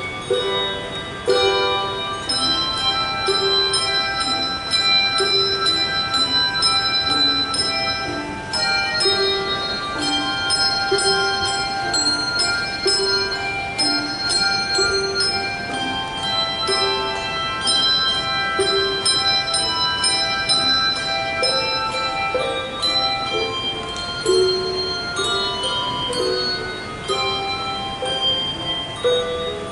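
Handbell ensemble playing a piece: many overlapping ringing bell tones with a repeated lower note about once a second, some bells rung by hand and some struck with mallets on the table.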